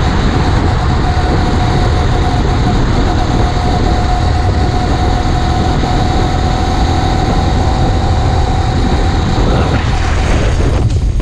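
Small four-stroke engine of a motorized fat-tire bicycle running at a steady cruising speed while being broken in, with a constant whine at one pitch over heavy wind rush on the microphone.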